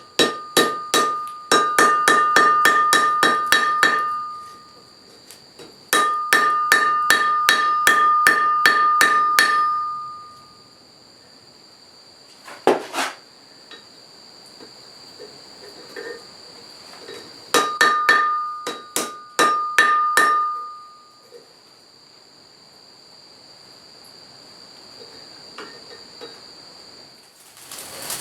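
Blacksmith's hand hammer striking hot iron on an anvil in three runs of quick blows, about four a second, each run ringing out; a single strike comes in the middle.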